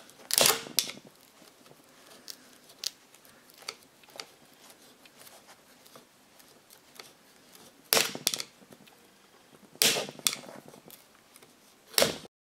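Thin screwdriver clicking and scraping against a speedometer's crimped metal bezel ring as the rim is levered out bit by bit to free the glass. There are scattered sharp clicks, with louder clusters near the start, about eight seconds in, around ten seconds and just before the end.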